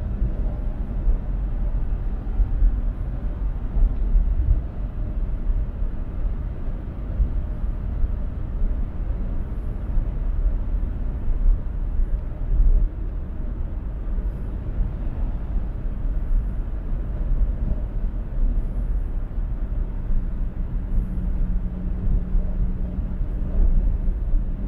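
Car driving at highway speed: a steady low road-and-tyre rumble with a faint engine hum, the hum stronger near the start and again near the end.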